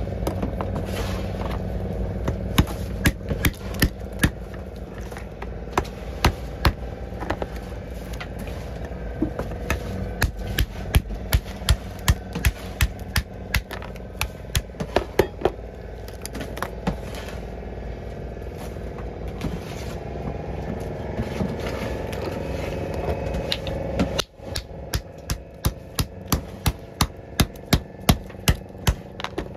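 Fishing boat's engine running steadily beneath repeated sharp knocks and scrapes from a puffer fish being cut up and pounded. Near the end the engine sounds quieter and the knocks come in a quick run of about two a second.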